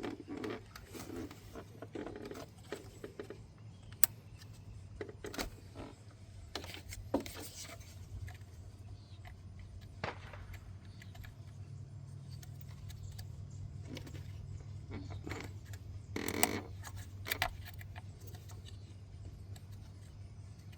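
Scattered metallic clinks and rattles of tools and parts being handled during reassembly after a VVT solenoid replacement, over a steady low hum.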